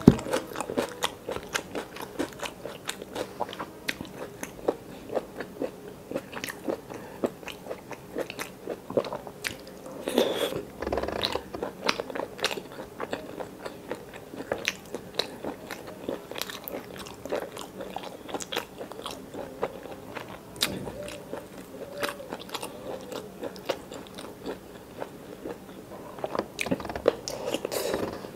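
Close-miked chewing and biting of chicken gizzard curry with rice, eaten by hand: a steady run of crunchy mouth clicks and bites, with a louder cluster of bites about ten seconds in.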